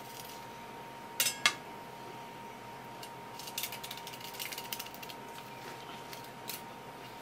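Kitchen knife on a wooden cutting board while filleting a kawakawa (suma) tuna: two sharp metallic clinks about a second in, then a run of crackly scraping as the blade cuts along the fish's back, and one more click near the end.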